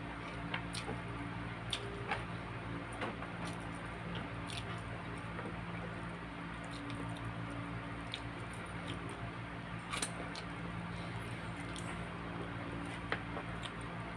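A person eating roast chicken and rice by hand: wet chewing and squishing mouth sounds with scattered sharp clicks, over a steady low hum.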